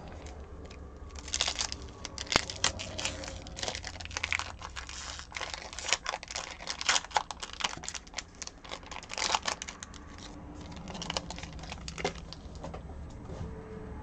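Trading card pack wrapper being torn open and crinkled by hand: dense, irregular crackling that starts about a second in, with a few more crinkles near the end.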